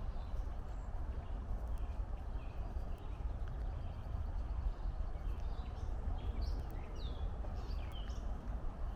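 Footsteps of a walker on a trail, over a steady low rumble of distant traffic. Near the end, small birds call a few short chirps, some falling in pitch.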